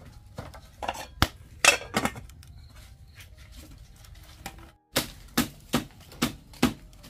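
Scattered knocks and clinks of a cooking pot and lid over a wood fire. After a brief break, five quick sharp slaps follow as a stick beats down on a woven mat.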